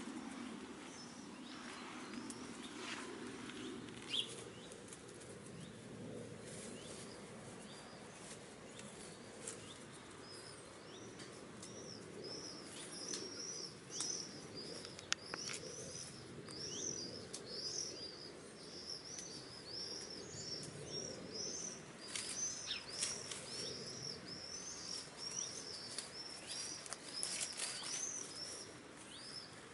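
A small songbird singing a fast run of high, repeated chirping notes, starting about ten seconds in, over scattered soft clicks and rustles.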